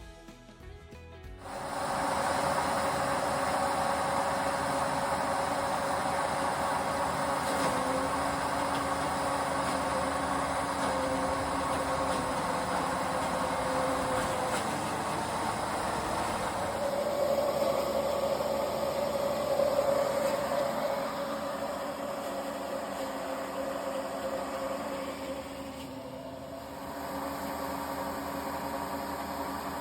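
A machine motor running steadily, its sound shifting about halfway through and dipping briefly near the end.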